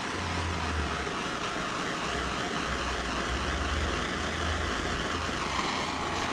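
Handheld torch flame hissing steadily while it heats heat-shrink wire connectors to shrink them and melt their glue.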